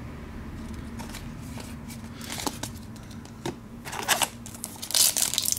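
Trading cards being handled, a few light clicks and slides, then a pack wrapper crinkling from about four seconds in.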